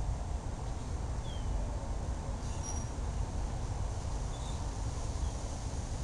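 S.M.C. Laguna ceiling fan running steadily at speed: a constant whir from motor and blades, heavy in the low end.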